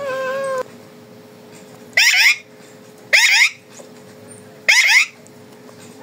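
Alexandrine parakeet screeching: a drawn-out call that stops about half a second in, then three short, loud screeches, spread a second or more apart.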